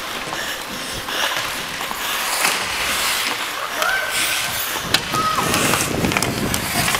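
Ice hockey skate blades scraping and carving on rink ice, with sticks clacking and a sharp crack about five seconds in.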